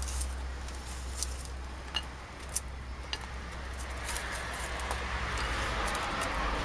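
Light clicks and taps of baked pogácsa scones being picked off a metal baking tray and set down on a porcelain plate, scattered irregularly, with soft handling rustle from about four seconds in. A steady low hum runs underneath.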